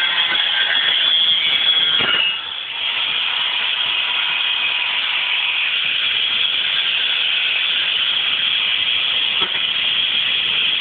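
Angle grinder cutting through a pressed sheet-metal car panel, a steady high grinding hiss with a faint whine under it. The sound eases briefly about two seconds in.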